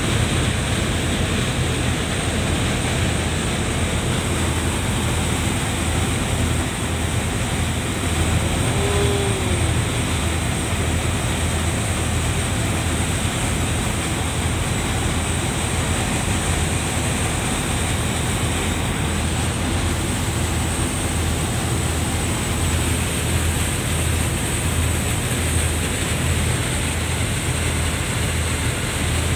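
Ferry under way at speed: the steady low drone of its engines mixed with the rush of the churning wake and wind across the open stern deck.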